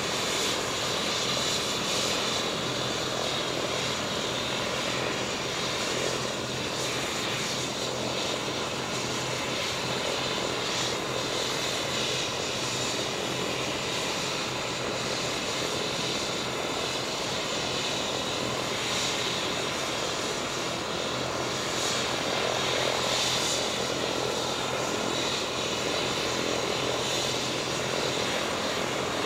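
Rescue helicopter's turbine engine running steadily on the landing pad: a constant rushing noise with a high whine over it.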